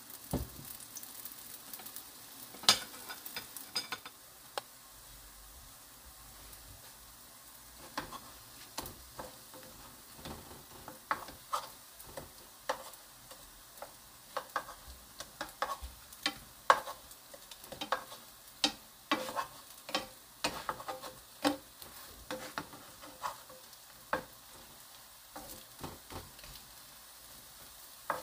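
Acorn-flour-coated zucchini slices sizzling in a nonstick frying pan, with two spatulas clicking and scraping against the pan at irregular intervals as the slices are turned.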